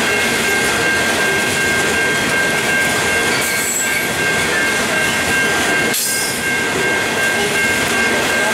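Coal hopper wagons of a freight train rolling past over the rails: a steady, loud rumble and rattle of wheels, with a steady high-pitched ringing tone throughout and a brief sharp clatter about six seconds in.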